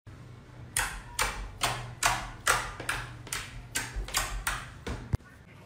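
Fingers pressing and poking into clear slime, making a steady run of about a dozen short sticky pops and squelches, a little over two a second.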